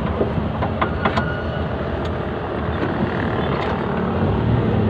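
Steady engine and road rumble heard from inside the cab of a small truck while it is being driven.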